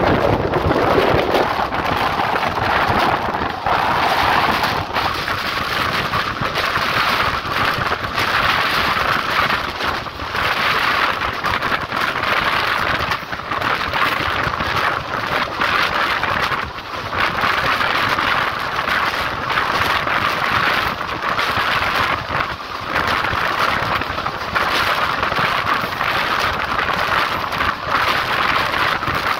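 Rushing wind on the microphone and the steady rumble and rattle of a passenger coach's wheels on the track while the train runs at speed.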